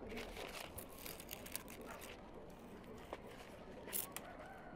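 Grapevine leaves and bunches rustling and crackling with irregular light clicks as grapes are picked by hand, with one sharper click about four seconds in.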